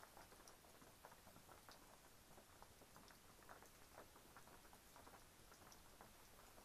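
Faint, irregular patter of raindrops dripping, a few light taps a second.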